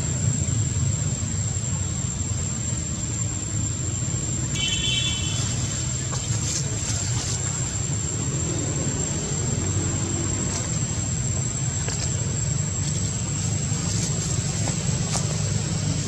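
A steady low motor hum with a thin, constant high-pitched whine over it, and a short high call about four and a half seconds in.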